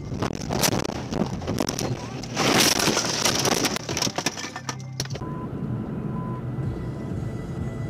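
A car crash: cracking and crunching noises mixed with voices, loudest a little over halfway through the first five seconds. It then cuts to a steady vehicle drone from about five seconds in.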